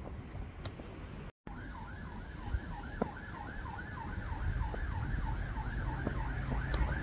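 An emergency vehicle's siren in a fast yelp, each wail rising and falling about three times a second, coming in about a second and a half in and running on over a low outdoor rumble.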